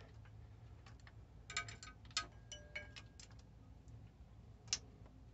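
Scattered light clicks and small metallic taps from fingers working the 12-volt power-cable terminal on the glow plugs of a Westerbeke 12-D diesel engine. The clicks come in a cluster in the middle, with one sharper click near the end, over a faint steady low hum.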